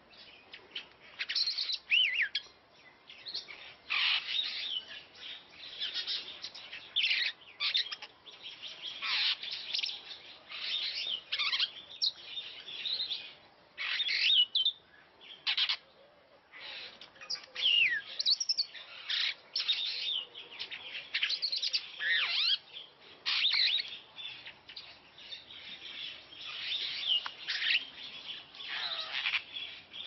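Superb starling singing: a long, rambling run of quick chirps, chatters and whistles that slide up and down, in short phrases with brief pauses between them.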